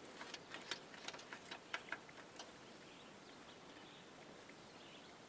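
Faint, small metallic clicks and ticks as a nut is spun by hand down a bolt onto a lock washer. The clicks come irregularly, about a dozen, and stop about two and a half seconds in.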